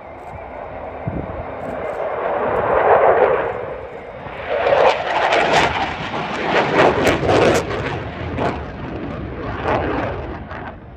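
Saab JAS 39 Gripen's single-engine turbofan roaring through a display pass. The rough jet noise swells, dips briefly about four seconds in, then comes loudest and coarsest for a few seconds before easing off near the end.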